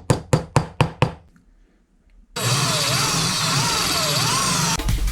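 About seven sharp knocks in quick succession, roughly five a second, then a pause of about a second. A power tool then runs with its pitch rising and falling, and a few clicks come near the end.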